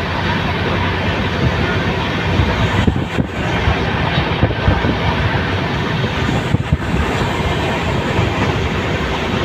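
Steady running noise of a moving vehicle heard from inside it: a low rumble with rushing air.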